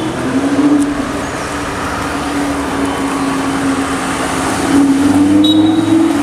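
BMW M2 Competition engine running with a steady note over street traffic noise, its pitch rising a little near the end as it pulls away. A short high beep sounds near the end.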